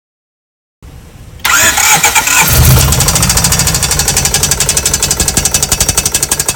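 1995 Honda Civic engine catching about a second and a half in, then running with a loud, rapid, even knocking from the bottom end. This is rod knock, the sign of a broken number-three connecting rod.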